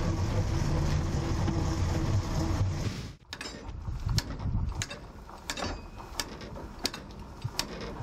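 A steady hum of even tones, then about three seconds in it cuts to a run of sharp metal clinks and scrapes: a fire rake drawing hot coals out of a 1929 steam lorry's firebox.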